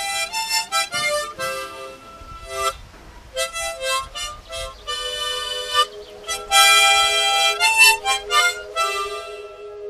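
Harmonica played solo: a lively melody of short notes, then longer held notes over sustained lower notes from about five seconds in.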